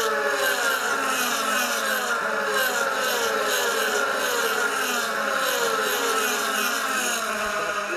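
A pack of DTM race cars with V8 engines at full noise, going by one after another. Their engine notes keep falling in pitch and overlap as each car passes.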